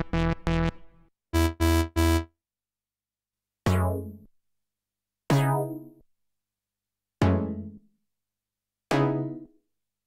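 D16 Group LUSH-101 software synthesizer playing preset demos: a quick run of short, punchy synth-bass notes in the first two seconds. Then come four separate synth chord stabs, each with a bright attack that dies away within about half a second, roughly every one and a half to two seconds.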